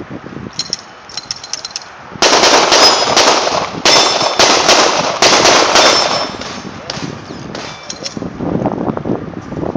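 A rapid string of 9mm shots from a Glock 17 fired at steel targets, with the plates ringing after hits. The firing is loudest from about two seconds in until about six and a half seconds, then a few fainter shots and clangs follow.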